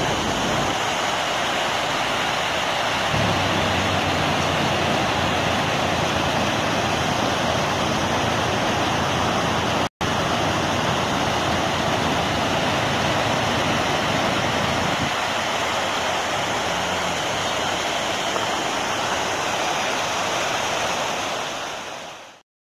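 Fast mountain stream rushing over rocks: a steady, loud wash of white water that cuts out for an instant about ten seconds in.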